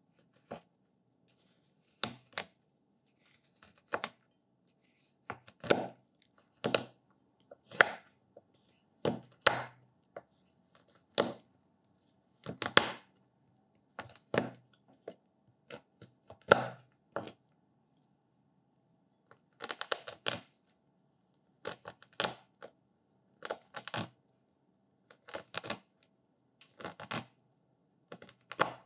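A chef's knife chopping a bar of white chocolate on a wooden cutting board: sharp cuts through the chocolate with the blade knocking the board, about one a second and often in quick pairs, with a short pause about two-thirds of the way through.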